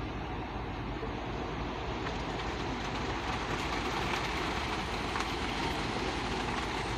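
Heavy diesel machinery running steadily: a concrete mixer truck and a crawler excavator working side by side, a continuous engine rumble with no pauses.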